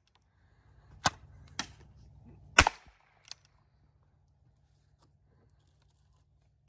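Ruger Wrangler .22 LR single-action revolver firing: a sharp crack about a second in, a lighter click just after, a second crack a second and a half after the first, and a third crack at the very end.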